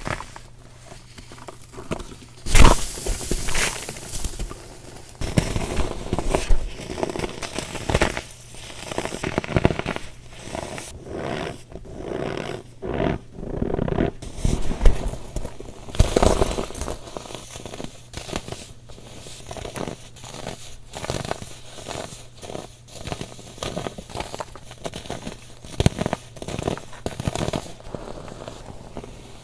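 Compressed baking soda being crushed and crumbled, with irregular dry crunches and crackles. The loudest crunch comes about two and a half seconds in.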